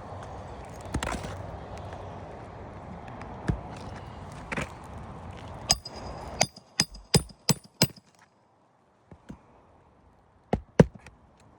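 Hammer blows on metal during an asphalt shingle repair: a quick run of about seven sharp, ringing strikes about six seconds in, then two more near the end. A steady background hiss runs underneath until the first strikes and then stops.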